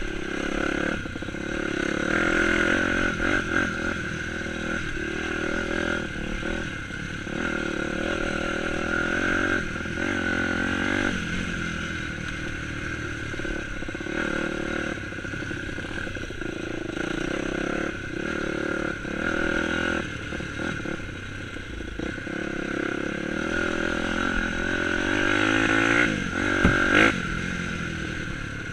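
Dirt bike engine running on a trail ride, its pitch rising and falling with the throttle, with a louder rev about 26 seconds in.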